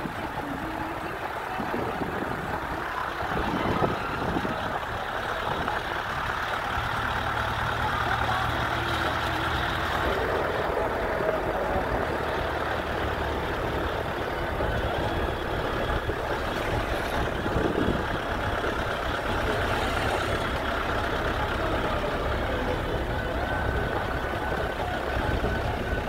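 Steady engine hum and road noise of a moving vehicle, with a low engine drone that runs more strongly through the middle of the stretch.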